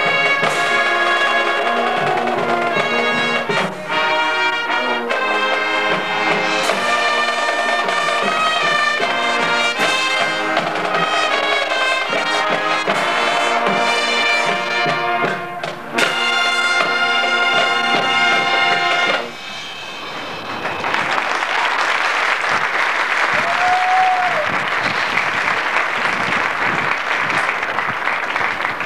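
Marching band brass playing loud sustained chords with sharp accents, cutting off on a final chord about two-thirds of the way through. Applause from the stands follows.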